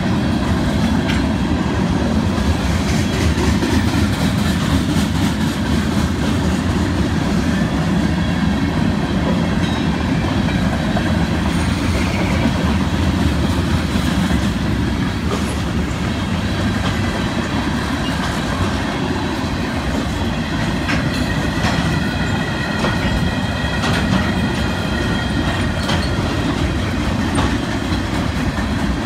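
Freight cars of a mixed freight train rolling past: a steady rumble of steel wheels on rail, with scattered clicks over the joints and faint thin high squealing tones from the wheels.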